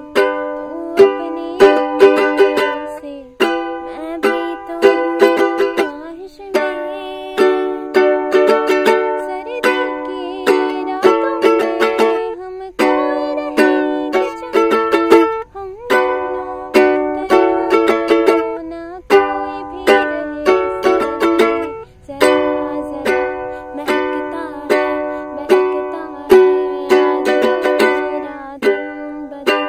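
Ukulele strummed, chords ringing in a steady rhythm with a few brief breaks between phrases.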